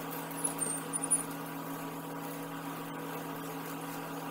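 A steady low hum, like a running appliance or mains hum, with a few faint soft sounds about the first second.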